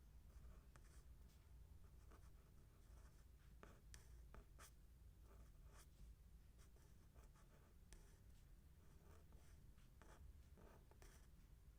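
Faint handwriting: a writing tool scratching out short, irregular strokes, with small pauses between them.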